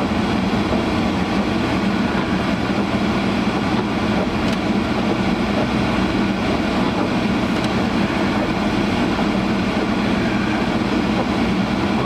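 Honda CR-V's defroster blower running full blast: a steady rushing noise filling the cabin while the car drives.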